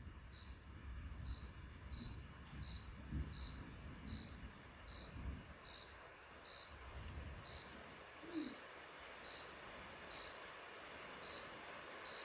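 A cricket chirping steadily, one short high chirp a little under every second. Faint low rumbles sit underneath through the first several seconds.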